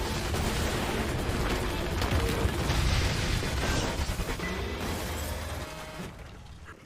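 Anime action-scene soundtrack: dense noisy sound effects with heavy bass mixed with music, fading away about six seconds in.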